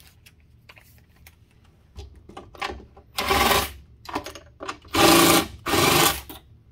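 Cordless drill running in three short bursts as it backs out screws, the first about three seconds in and two more close together near the end, with small clicks of handling between.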